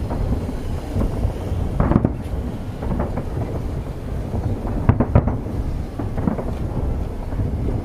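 Aerial fireworks going off, a continuous deep booming rumble with sharper bangs about two seconds in and a quick double bang about five seconds in.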